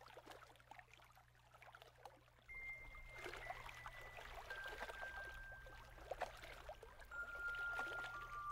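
Gentle water lapping and trickling. About two and a half seconds in, a slow melody of single held high notes joins it, each note stepping lower than the one before.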